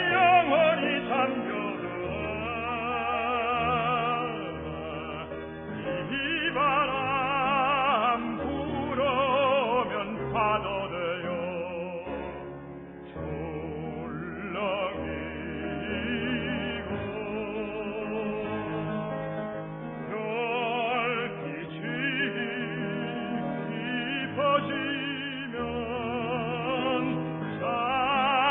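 Operatic tenor singing a Korean art song with wide vibrato over instrumental accompaniment, in a recording that lacks the highest frequencies.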